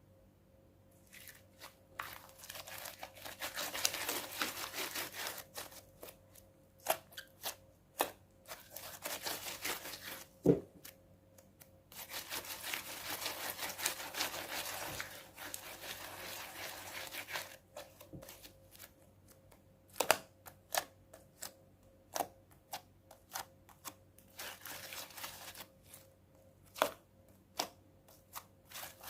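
Clear-glue and borax slime being squeezed and stretched by hand, giving long stretches of sticky crackling broken by many sharp clicks.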